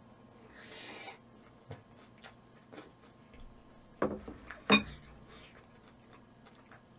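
Close-up eating sounds: a mouthful of food taken in with a short breathy slurp, then small wet clicks of chewing. About four seconds in, a bowl is set down on the table with two knocks, the second the loudest sound.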